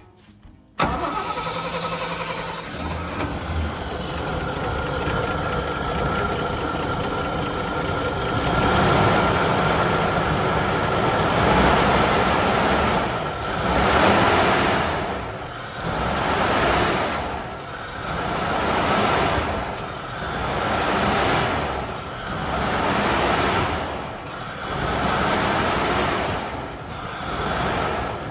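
Toyota Land Cruiser FJ45's straight-six engine run at wide-open throttle while a rag chokes the carburetor intake, air sucking and squealing past the rag under heavy vacuum, which pulls varnish and debris out of the carburetor's orifices to stop the secondary barrel from dumping fuel. It starts suddenly about a second in, and from about halfway the sound swells and dips every two seconds or so.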